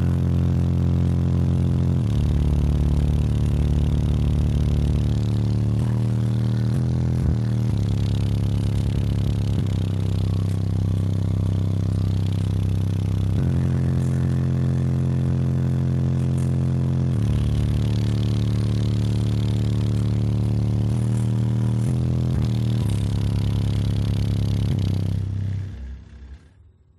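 Bass-heavy music played loud through four 15-inch Rockford Fosgate T2 subwoofers driven by an EarthQuake D3 amplifier, heard inside the vehicle's cabin. The low bass notes shift every second or two, and the music cuts off near the end.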